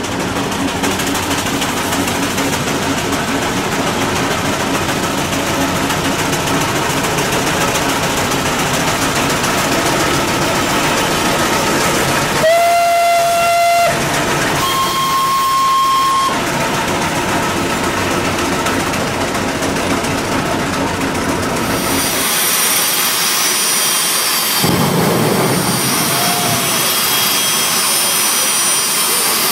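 Steam road locomotive running steadily, blowing its steam whistle twice about halfway through, a lower blast then a higher one, each about a second and a half long. Near the end the sound changes to a jet engine mounted on a show truck, running with a steady high whine.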